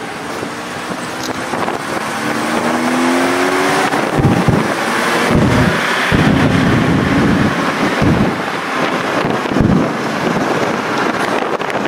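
Car engine pulling with its pitch rising through the first few seconds, then the car driving on with heavy wind rushing over a microphone mounted on its body.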